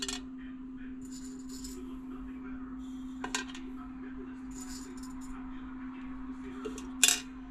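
Popcorn kernels being set down one at a time on the bottom of a stainless steel pot: a few light clicks, the sharpest about seven seconds in, over a steady low hum.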